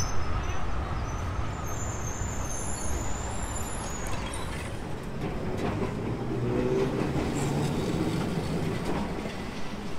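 Electric street trams passing at close range: a steady rumble of steel wheels on the rails and running gear, with a faint high squeal for a few seconds near the start and a humming note in the second half.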